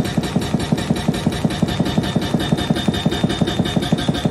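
Excavator-mounted hydraulic breaker hammering rock, its chisel driven in a rapid, even run of blows, several a second, over the excavator's running engine.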